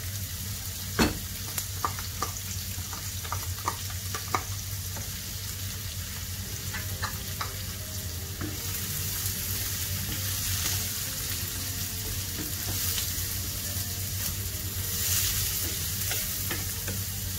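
Diced potatoes and chopped onion sizzling in sunflower oil in a frying pan, stirred with a wooden spatula. The spatula knocks against the pan several times in the first few seconds, and the sizzle grows louder about halfway through.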